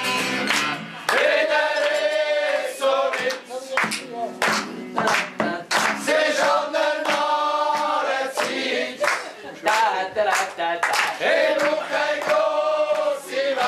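A group of men singing a song together in chorus to a strummed acoustic guitar, with sharp hits keeping a steady beat.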